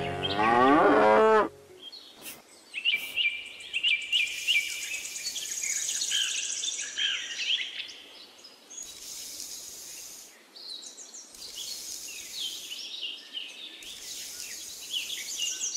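A cow mooing, cut off about a second and a half in, followed by a steady chorus of high bird chirps and insect trills.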